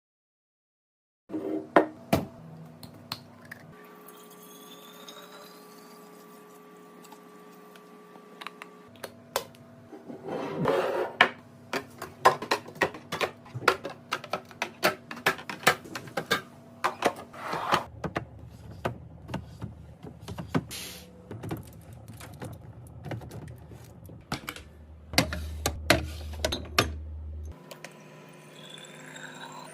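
Containers and packaged items being set into a fridge and arranged: many clicks, clinks and knocks of plastic and glass, some in quick runs and some single and loud. The faint background tone changes abruptly a few times where short clips are joined.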